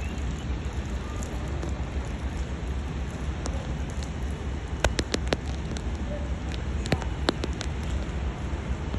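Rain falling steadily over a low rumble, with a handful of sharp drip-like taps about five and seven seconds in.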